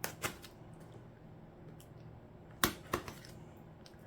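Packaging being handled as a parcel is opened: a few sharp clicks and taps, a pair near the start and another pair about two-thirds through, over a faint steady low hum.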